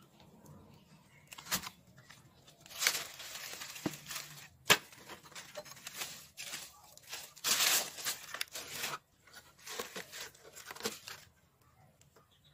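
Cut plastic-bottle planters crinkling and rustling as they are handled and set down among dry leaves, in two longer stretches with a few sharp clicks, the loudest about five seconds in. It goes quiet near the end.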